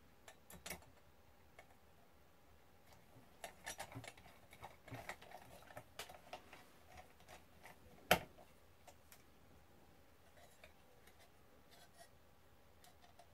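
Small hand screwdriver driving screws into the charge controller's metal case, with faint scattered clicks and scrapes of the bit, screws and case, and one sharper click about eight seconds in.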